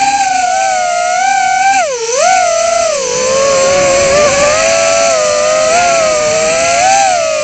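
Emax Tinyhawk 2 micro quadcopter's brushless motors and propellers whining, heard from its own onboard camera. The pitch rises and falls with the throttle, with a sharp dip about two seconds in and a gradual drop around three seconds.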